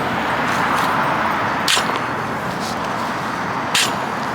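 Steady road-traffic noise from passing cars, with no horn sounding. Two short sharp sounds cut through, about a second and a half in and again near the end, the second the louder.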